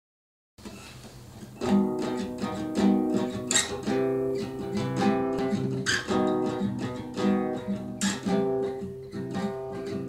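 Acoustic guitar playing a song's opening, chords strummed in a steady rhythm. The guitar comes in about a second and a half in, after a short faint hiss.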